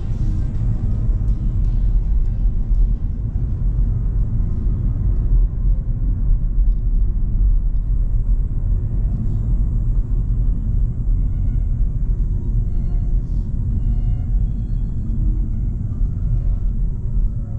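Steady low rumble of a car driving on the road, with music playing faintly underneath.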